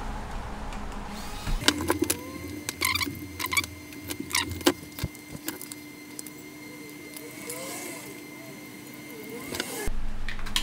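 Small electric precision screwdriver whirring as it backs out the screws holding the circuit board, with scattered sharp clicks of handling.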